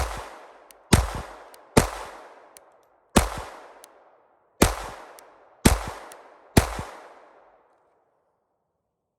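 Glock 44 .22 LR pistol firing seven shots at an uneven pace of about one a second, each shot ringing out briefly. The shots stop about two-thirds of the way through. The ProMag 18-round magazine is feeding round after round, far better than the 5 or 6 failures of its first use.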